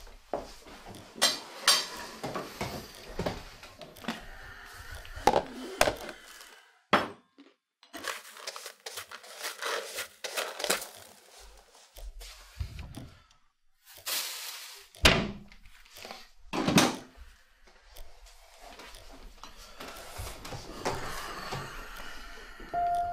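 Household knocks and clatter, with a hand brush sweeping spilled sugar into a plastic dustpan on a wooden floor. Two heavy thumps come about fifteen and seventeen seconds in.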